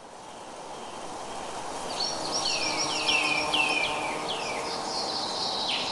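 Forest ambience fading in, a steady hiss with birdsong: from about two seconds in, a bird gives a quick series of high chirps, each sliding down in pitch.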